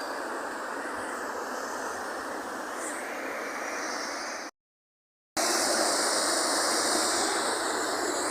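Steady rush of a waterfall's falling water. About halfway through it drops out to dead silence for about a second, then comes back louder and brighter.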